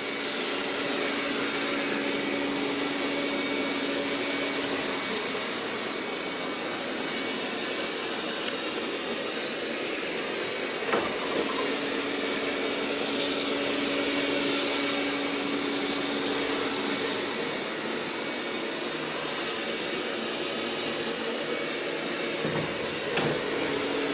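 Roborock S6 MaxV robot vacuum running while it vacuums hair off a black fabric mat: a steady whir with faint whining tones that fade in and out every few seconds.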